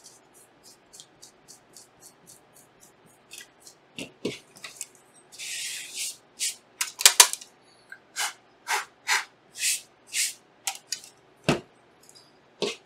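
Paper towel wiped back and forth with isopropyl alcohol over a graphics card part to clean it, a series of short swishing strokes. The strokes are faint and quick at first and become louder and slower from about four seconds in. A longer hiss comes about five seconds in, and there are two dull knocks as the part is handled.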